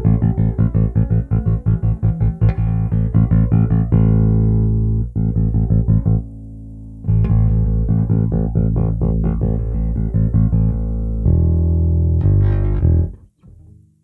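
Squier Classic Vibe '60s Precision Bass played fingerstyle, a busy run of quick plucked notes, with the volume knob full up. After a short pause the tone knob is at half instead of full, and a second run of notes ends in a few held notes that stop about a second before the end.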